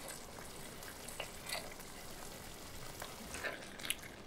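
Piperade of peppers and tomato simmering in a pot as a spatula is drawn through it: a faint sizzle with scattered small pops, the sauce being cooked down to thicken.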